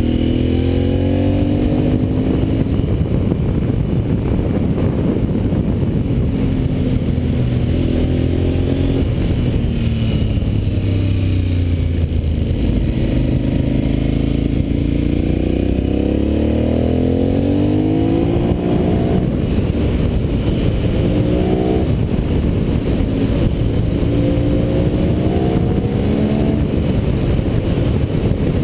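Motorcycle engine on the move, its pitch climbing as it accelerates and dropping back as it slows, over and over, with heavy wind rumble on the microphone.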